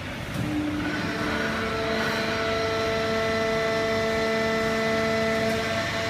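Fully automatic horizontal hydraulic baling press running: a steady mechanical noise with several steady whining tones, which gets louder about a second in.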